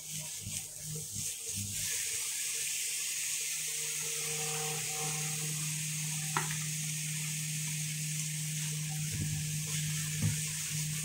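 Minced chicken and chopped garlic frying in olive oil in a non-stick wok, stirred with a silicone spatula: a steady sizzling hiss that grows louder about two seconds in, with a single light click near the middle.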